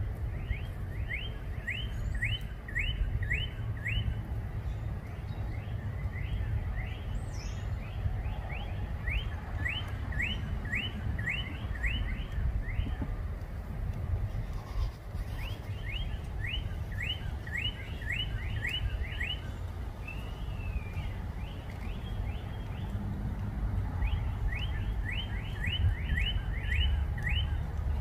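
A songbird singing runs of quick, clear slurred notes, about four a second, in several bursts of two to four seconds each. A low steady rumble runs underneath.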